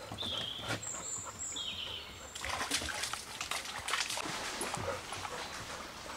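Rustling and footsteps as someone pushes through leafy undergrowth on a woodland path, with crackling that thickens from about two and a half seconds in. Two short, high, slightly falling chirps come in the first two seconds.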